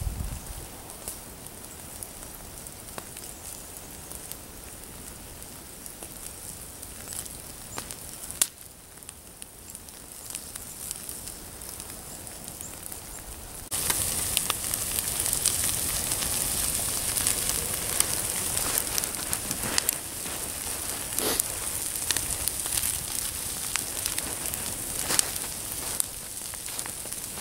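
Open firewood pyre burning, hissing steadily with scattered crackles and pops. About halfway through it suddenly gets louder, with more hiss and more frequent snapping.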